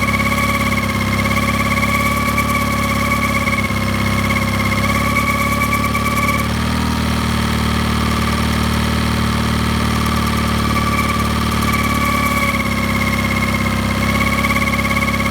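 Mercury 9.9 Pro Kicker four-stroke outboard running at low rpm with a steady high-pitched hum over the engine note, which the owner takes for a bearing noise. The hum drops away about six seconds in and comes back a few seconds before the end.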